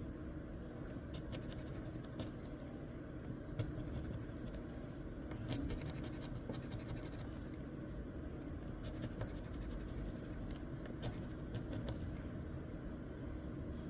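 A crossword scratch-off lottery ticket being scratched: a run of short scraping strokes on the coating, with small sharp ticks scattered through and thickest in the middle stretch and again a little later.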